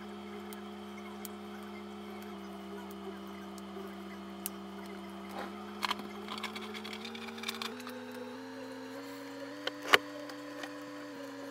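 Plastic shrink wrap on a CD jewel case being handled and peeled off, with scattered crinkles and sharp snaps, the loudest snap about ten seconds in, over a faint steady hum.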